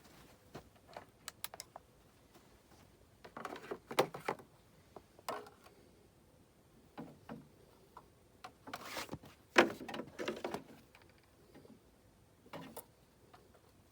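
Scattered clicks, taps and short scraping rustles of hand work on the ATV, with the engine not running; the loudest clatter comes about 4 seconds in and again around 9 to 10 seconds.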